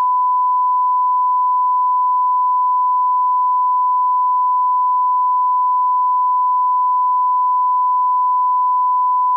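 1 kHz reference test tone, the line-up tone laid under SMPTE colour bars: one pure, steady beep held at a constant pitch and level.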